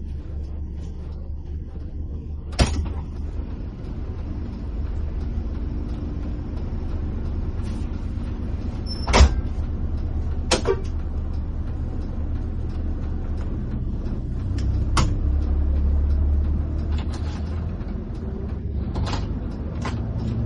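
Coach bus engine running with a steady low drone heard from inside the cabin, with several sharp knocks and clicks over it, the loudest about nine seconds in.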